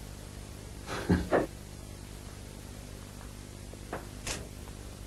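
Quiet stretch of a film dialogue sample: a steady low hum, with two short vocal sounds about a second in and a faint click near the end.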